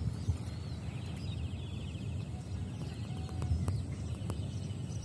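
Outdoor rural ambience: birds chirping, with a rapid trill from about one to two and a half seconds, over a steady low rumble.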